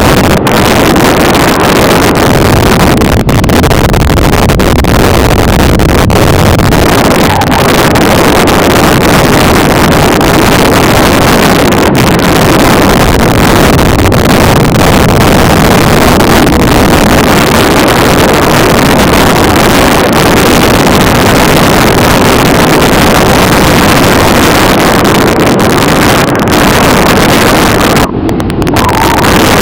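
Loud, steady wind roar buffeting the microphone in a tandem skydive's freefall. It dips briefly near the end, as the parachute canopy opens.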